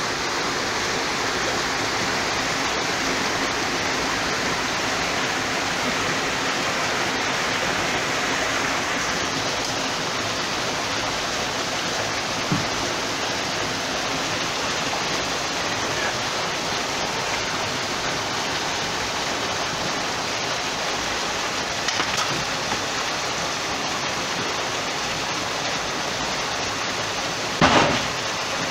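Dry dock being flooded: water pouring in over the gate and churning alongside a narrowboat's hull, a steady rush. A few light knocks break through, the loudest near the end.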